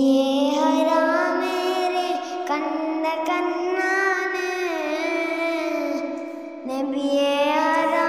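Vocal music: a high voice singing long, sliding, held notes, with a short break about six and a half seconds in.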